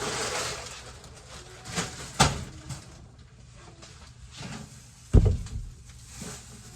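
Groceries being handled and put down: a rustle at the start, two sharp clicks around two seconds in, then a heavy thump about five seconds in.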